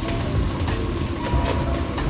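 Steady rushing noise with a fluctuating low rumble, and faint background music underneath.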